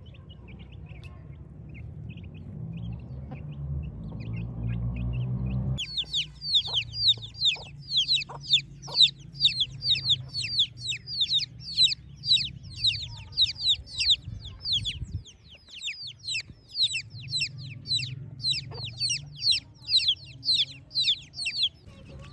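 Chicks peeping loudly in a rapid run of short, high, falling notes, about three a second, starting abruptly about six seconds in. Before that there is only a low rumbling noise that builds up and then cuts off.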